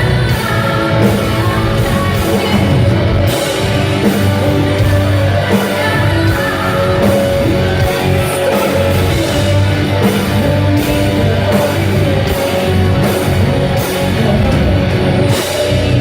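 Loud live symphonic metal: a full band with drums and guitars playing under a female lead vocal, with regular drum strikes that drop out just before the end, leaving a held chord.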